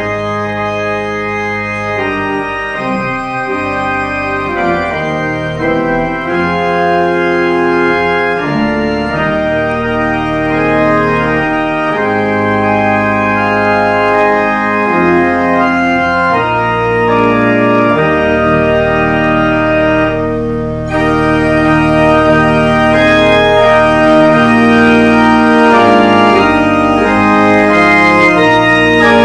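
Church pipe organ playing processional music in held chords that change every second or two. About three-quarters of the way through it suddenly becomes louder and brighter.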